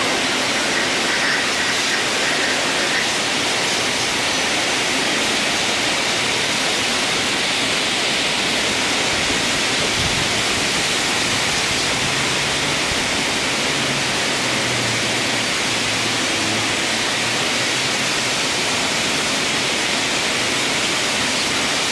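High-pressure water jet from a pressure washer lance spraying onto a bare vehicle chassis and engine: a steady rushing hiss of water.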